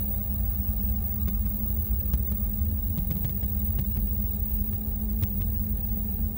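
Dark ambient noise soundtrack: a low, steady rumbling drone with a constant hum, dotted with faint scattered clicks and crackles.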